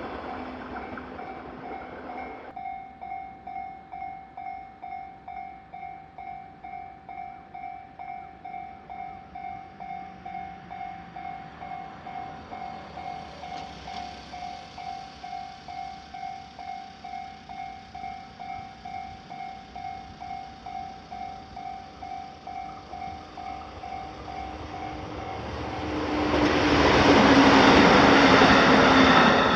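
Japanese railway level-crossing warning bell ringing steadily at about two strikes a second. A passing train fades away in the first couple of seconds, and another train passes loudly near the end.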